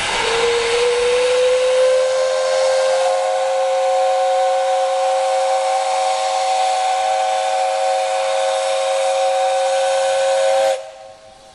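Steam whistle of JNR Class 8620 locomotive No. 8630 blown in one long, steady blast of about ten and a half seconds. Its pitch slides up slightly as it opens, a rush of steam hiss comes with it for the first few seconds, and it cuts off suddenly.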